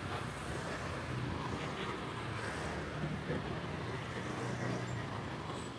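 Steady hum of passing city street traffic.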